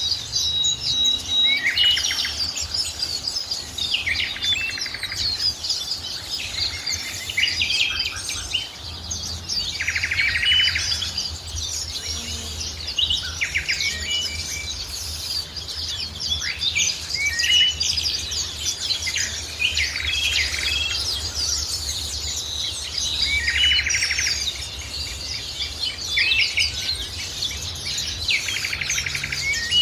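A chorus of several birds chirping and singing at once, with quick high chirps overlapping short buzzy trills that recur every few seconds. A faint low steady rumble runs underneath.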